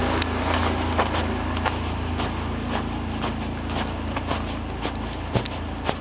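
Footsteps on a snow-covered pavement, about two steps a second, over a steady low hum of road traffic.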